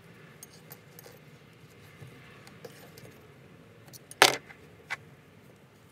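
Light metallic clicks and clinks of a folding set of steel hex keys being handled and worked against a steel axle and wheelset while tightening set screws, with one sharp clink about four seconds in and a smaller one just after.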